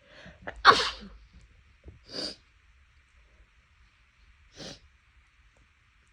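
A person sneezing once, big and loud, about a second in, just after a quick inhale. Two softer, shorter breathy sounds follow, about a second and a half and about four seconds later.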